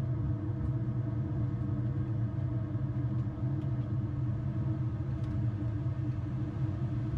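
Steady drone of an ATR's twin turboprop engines and propellers at takeoff power, with a low rumble, heard in the cockpit during the takeoff roll.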